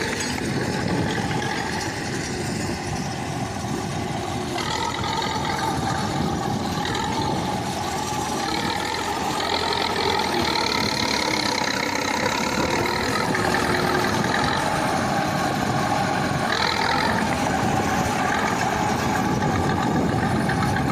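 KhTZ T-74 crawler bulldozer's diesel engine running steadily under work, getting a little louder in the second half.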